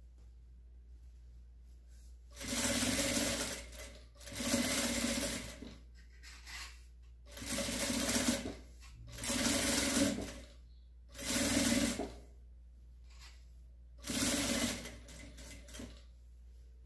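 Sewing machine stitching in six short runs of about a second each, stopping and starting again between runs as bias binding is sewn along a fabric edge.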